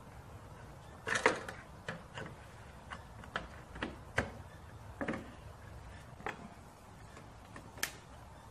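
About a dozen sharp clicks and taps, irregularly spaced, as the rear quarter glass trim strip of a Toyota AE86 Corolla is worked against the window edge and pressed onto its retaining clips. The loudest is a cluster about a second in.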